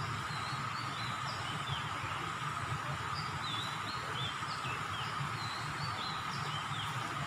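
Small birds chirping in short, quick high notes, many times over, against a steady background hum.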